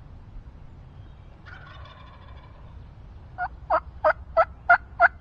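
Wild turkey calls: a fainter gobble about a second and a half in, then a loud, evenly spaced series of six yelps, about three a second.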